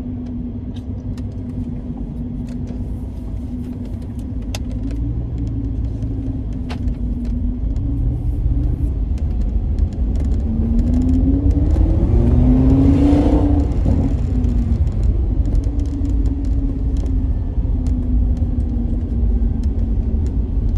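Car engine running with steady road rumble while driving. About halfway through the engine note climbs and grows louder, peaking about two-thirds of the way in, then drops back to a steady run.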